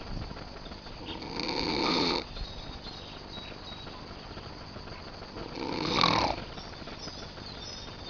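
A man snoring: two long snores about four seconds apart, each growing louder and then breaking off sharply.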